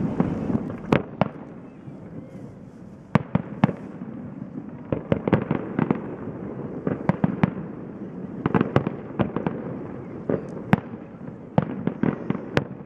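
Fireworks display heard from across open water: a steady stream of sharp bangs and shell bursts, several clustered together, over a continuous rumble of launches and echoes, with a brief lull about two seconds in.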